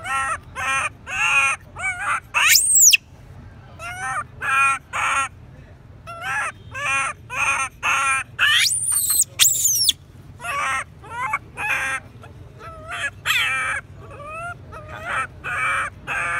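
Baby long-tailed macaque crying in distress: runs of short, wavering whimpering calls, several a second, broken by two shrill screams that sweep up and fall back, about two seconds in and again about nine seconds in.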